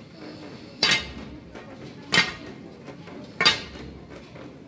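Sharp metallic clinks struck at an even, slow pace, one about every 1.3 seconds, four times, each ringing briefly.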